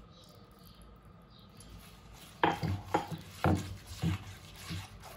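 Kitchenware being handled: a quiet stretch, then about five sharp knocks roughly half a second apart from about halfway through.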